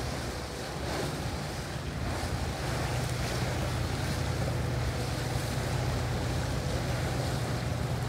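Large motor yacht cruising slowly past, its engines a steady low drone that grows a little louder a couple of seconds in, over the wash of water and wind on the microphone.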